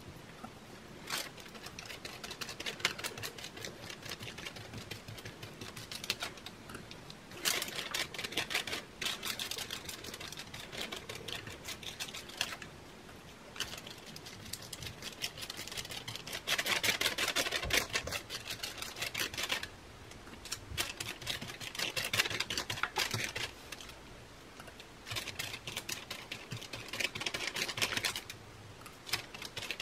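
A small paintbrush dabbing and scrubbing watered-down school glue onto a tea bag laid on a plastic cereal-box liner. It makes rapid, scratchy tapping in several spells of a few seconds each, with short pauses between them.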